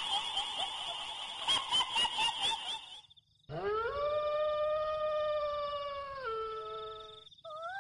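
A high, wavering, chattering sound for about three seconds, cut off by a short gap. Then a long howl rises, holds steady, and steps down in pitch, and a short rising call follows near the end: a spooky howl sound effect.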